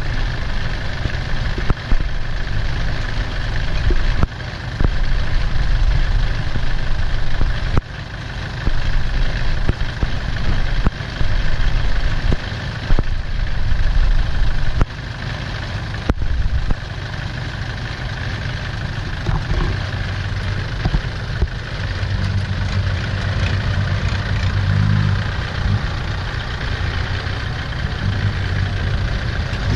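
Diesel engines of a Kubota farm tractor and a six-wheel dump truck running as the tractor tries to pull the truck out of the mud it is stuck in. The engine sound surges and falls unevenly for the first half, then settles into a steadier drone.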